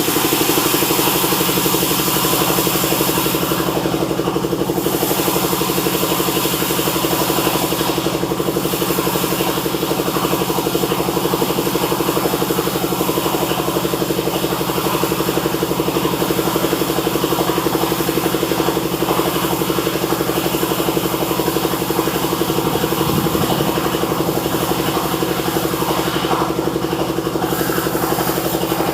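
Sawmill running steadily: a constant machine hum with a high hiss over it as the saw works through golden teak, the hiss thinning briefly a few times.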